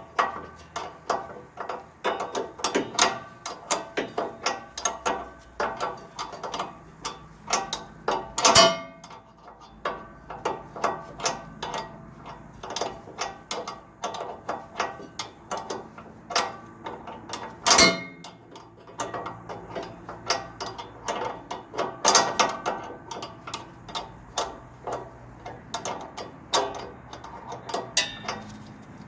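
Hand ratchet wrench clicking in rapid runs of strokes, with two louder knocks along the way, as the fill plug on the snow blower's auger gearbox is worked to check the gear oil.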